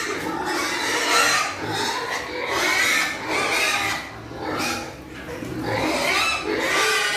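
Several fattening pigs squealing at once in high, wavering calls, with brief lulls about four and five seconds in.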